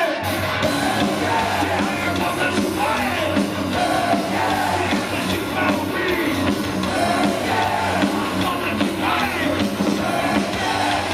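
Live heavy metal band playing, with a singer's shouted vocals over a steady low bass.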